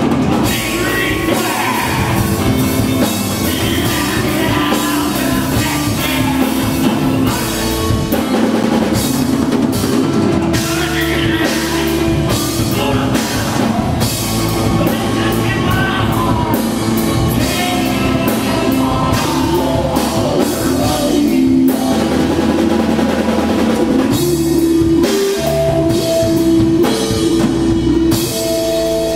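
Live rock trio playing loud: electric guitar, bass guitar and drum kit, with steady drum and cymbal hits under sustained guitar notes.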